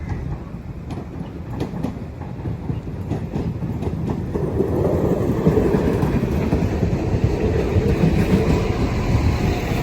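Northern Ireland Railways Class 4000 diesel multiple unit, unit 4020, rumbling along the track as it approaches, growing louder from about four seconds in. A few sharp clicks come in the first couple of seconds.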